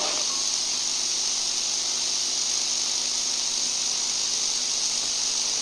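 Steady static hiss with a faint low hum beneath it, unchanging throughout.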